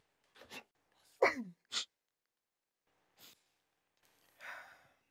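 A woman sobbing quietly in short, breathy catches, with a falling whimper about a second in and a longer shaky breath near the end.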